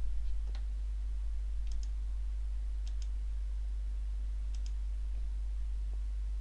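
Computer mouse button clicked three times, each a quick press-and-release pair of clicks, over a steady low hum.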